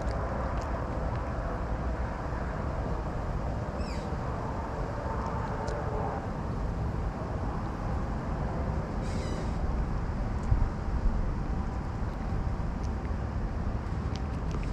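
Outdoor background with a steady low rumble, two brief high-pitched calls about four and nine seconds in, and a couple of short knocks about ten and a half seconds in.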